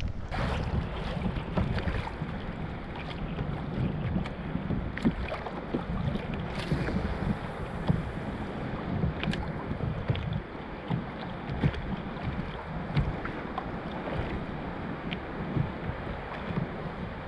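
Wind buffeting the microphone over water lapping against a kayak, with scattered small clicks and knocks throughout.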